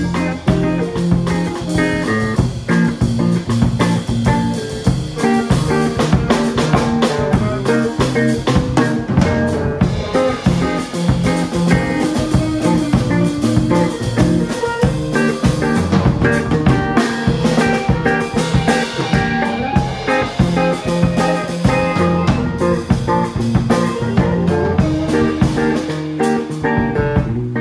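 A band playing a song: drum kit with a steady beat under guitar.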